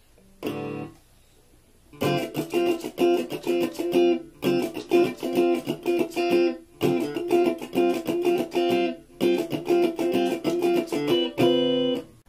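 Stratocaster-style electric guitar: a single chord, then four phrases of quickly picked notes, each about two seconds long, ending on a held chord.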